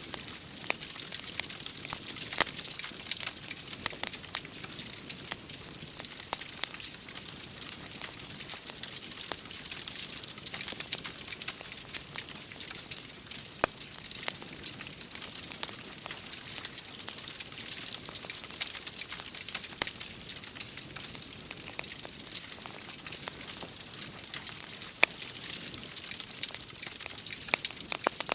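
Wood fire crackling, with irregular sharp pops and snaps, over a steady hiss of rain.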